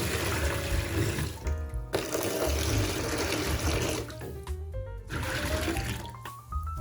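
Liquid being poured into a vessel in several spells of splashing; near the end the pour's pitch rises steadily as the vessel fills. Background music plays throughout.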